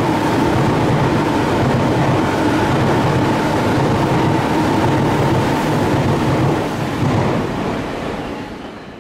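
Tobu Skytree Line electric train running along the tracks at the platform, wheels on rail with a steady motor whine. The train noise fades away over the last two to three seconds as it moves off.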